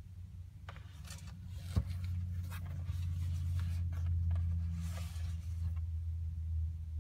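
A steady low hum, with scattered light rustles and clicks of handling, and one sharp click about two seconds in.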